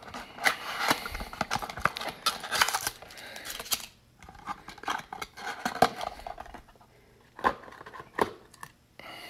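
A cardboard trading-card box being opened and a foil card pack taken out by hand: a busy run of rustling and clicking for the first few seconds, then sparser taps, with two sharp clicks near the end.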